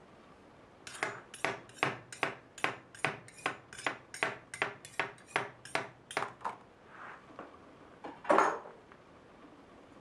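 Kitchen knife blade tapping against a curved stainless-steel finger guard in a quick run of about twenty light metallic clicks, as in a chopping motion against the guard. A single louder clack a little after eight seconds.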